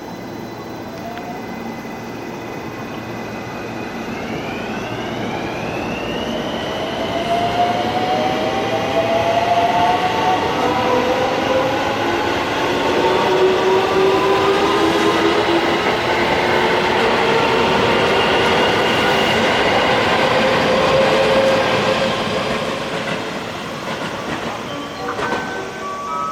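Electric train pulling away from the station platform, its traction motors whining in several tones that climb steadily in pitch as it gathers speed, over the rumble and clatter of its wheels on the rails. It grows loud through the middle, then fades near the end.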